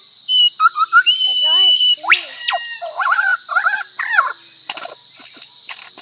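Lyrebird singing a rapid medley of mimicked calls: varied whistles, chirps and quick rising and falling notes, with one held whistle about a second in. A steady high insect drone runs underneath.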